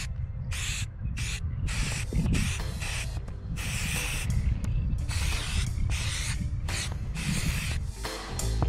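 Aerosol spray-paint can sprayed in about ten short hissing bursts, with a steady low rumble underneath.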